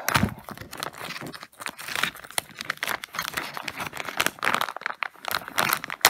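Small clear plastic bag of screws crinkling irregularly as hands twist and pull at it to get it open.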